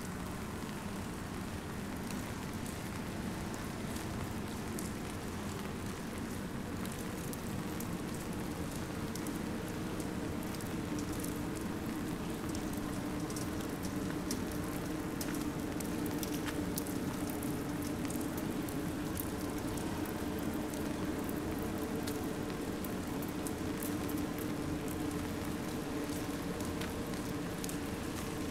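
Steady rain with scattered drops ticking, over a steady low hum.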